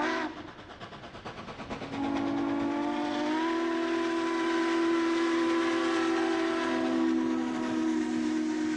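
Steam locomotive running, then its steam whistle blowing one long, several-note blast from about two seconds in. The whistle's pitch rises slightly at first, then holds steady.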